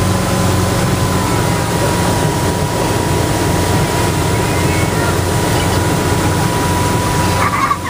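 Motorboat under way at speed: the engine runs steadily under a constant rush of wind and water, with a thin steady whine over it. The sound breaks off briefly near the end.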